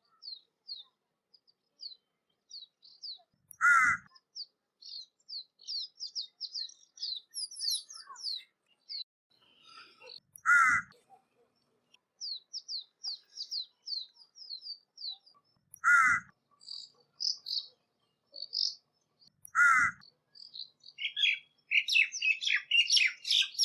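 A crow cawing four times, single loud caws several seconds apart. Between them runs a steady stream of short, high chirps from small birds, which grows into dense chattering near the end.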